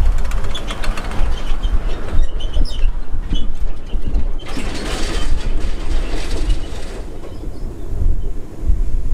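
A pickup truck towing a flatbed trailer passing by, the empty trailer rattling and banging for the first few seconds, then a stretch of tyre and road noise as it pulls away. Heavy wind rumble on the microphone throughout.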